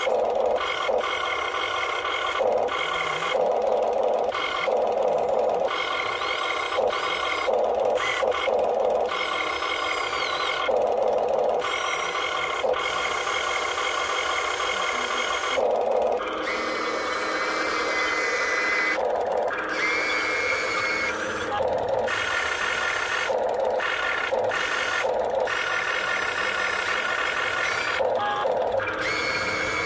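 RC excavator's electric motors whining as the grab, arm and boom move to lift logs. The whine cuts out and starts again every second or so as each movement is started and stopped.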